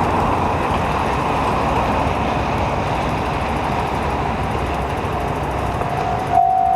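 Steady hiss of heavy rain mixed with road traffic. Near the end an electronic level-crossing warning bell starts ringing, a single tone repeating about twice a second.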